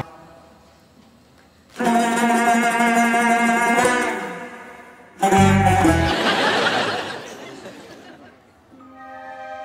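Soundtrack music in short dramatic stings: after a near-quiet second, a phrase of pitched notes comes in about two seconds in, then a deep hit about five seconds in that fades away, and held notes start near the end.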